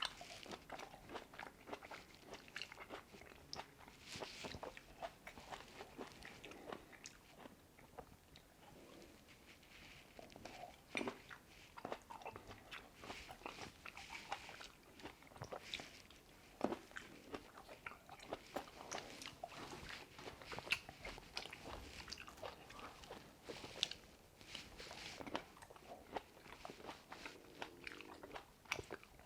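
Close-up chewing and biting of Shine Muscat grapes: a steady, irregular run of crisp, wet mouth clicks and crunches.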